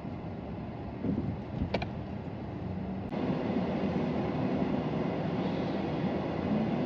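Steady car cabin noise while driving, with a brief click about two seconds in; it gets louder about three seconds in.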